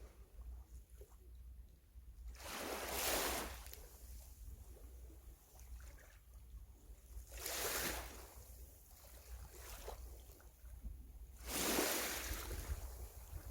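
Sea waves washing in three times, each swell rising and falling over about a second, over a low steady rumble.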